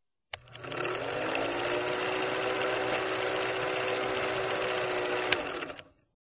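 Film projector sound effect: a steady mechanical whirring clatter that starts with a click, has a second click near the end, then cuts off.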